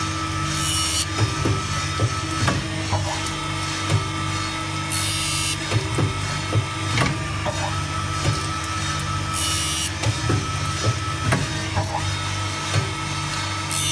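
Saw-sharpening machine grinding the tungsten-carbide teeth of a circular saw blade with alternate bevels, under coolant: a steady motor hum with repeated short clicks and knocks as the grinding wheel and blade work tooth by tooth. A brief high hiss comes about every four and a half seconds.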